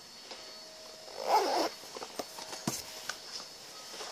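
Handling noise close to the microphone: a short rasping rustle about a second in, then scattered clicks and light knocks.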